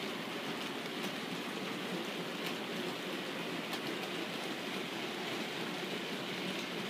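OO gauge model goods train running past, its wagon wheels rolling on the track with a steady noise and a few faint clicks.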